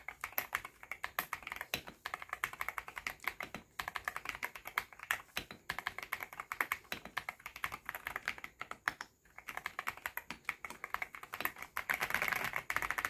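Typing on a Keychron V6 Max mechanical keyboard fitted with Akko Cream Blue Pro V3 switches and KSA profile keycaps: a quick, steady run of keystrokes with a few short pauses, getting faster and denser near the end.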